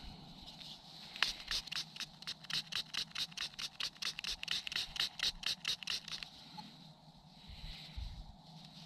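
Rapid back-and-forth scrubbing strokes, about five or six a second for some five seconds, as soil is cleaned off an enamelled Roman brooch. There is faint rustling of handling before and after.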